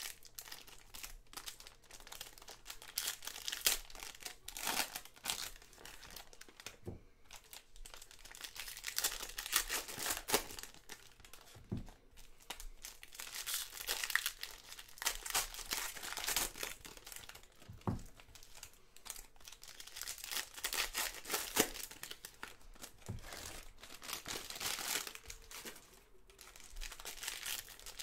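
Foil wrappers of Panini Donruss basketball card packs crinkling and tearing as they are opened by hand. The crackle is continual, with a few sharper clicks as cards are handled.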